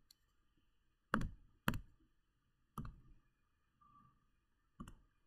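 Four sharp clicks from operating a computer's drawing tools, irregularly spaced: two close together about a second in, then one near the middle and one near the end.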